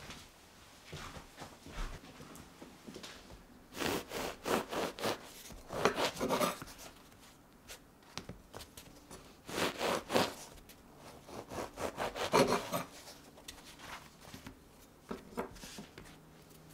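Crusty ciabatta rolls being cut open and handled on a wooden chopping board: dry crackly crust scraping and rubbing on wood in about five short bursts.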